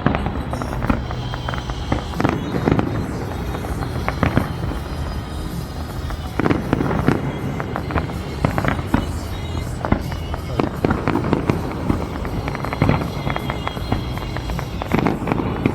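Aerial fireworks display bursting continuously: many sharp bangs and crackles in quick, irregular succession, with music beneath.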